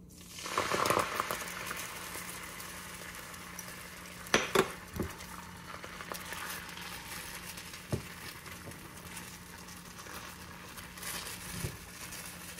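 Beaten egg yolk poured into a lightly oiled nonstick frying pan on low heat, sizzling as it spreads into a thin egg sheet. The sizzle swells about half a second in as the egg lands, then settles to a steady frying hiss, with a few light knocks, the loudest a little after four seconds.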